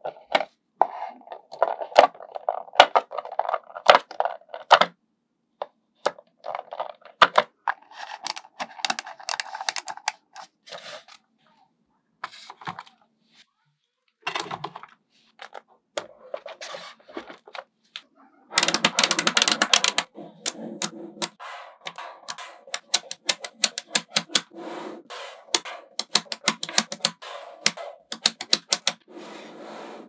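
Small magnetic balls clicking and snapping together in quick, irregular runs with short pauses between them. About two-thirds of the way through comes a louder, dense rattle of clicks lasting about two seconds.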